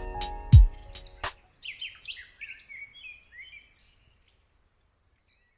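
A hip-hop beat plays its last few drum hits over a held music bed and stops about a second in. Small birds chirp briefly in quick short calls, then the sound fades to silence.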